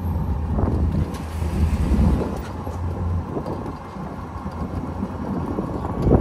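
Road noise from a 2022 Moke Electric driving over brick pavers: tyres rumbling and the open body rattling, with no engine sound. It eases a little about halfway, and a sharp knock comes at the very end.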